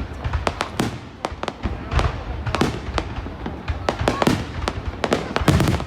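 Fireworks display: a rapid, irregular string of bangs and crackles, several a second.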